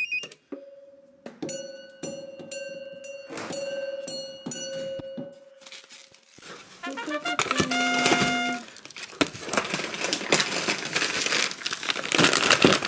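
Background music with held notes, then from about nine seconds in, loud crinkling and rustling of plastic food packaging being handled and unpacked.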